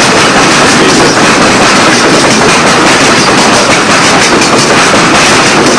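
Ore train passing close at speed: a loud, steady rumble with fast clattering of steel wheels over the rails.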